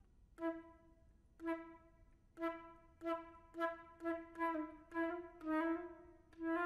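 Flute and piano playing contemporary chamber music. As a chord dies away, a single note is sounded again and again with sharp attacks, about a second apart at first and then faster and faster, its pitch sagging slightly now and then.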